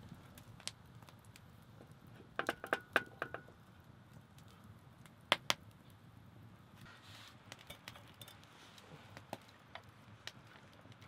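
Metal camping pot clinking as it is handled, with a quick run of ringing clinks about two and a half seconds in and two sharp clicks a couple of seconds later. A small campfire crackles softly underneath.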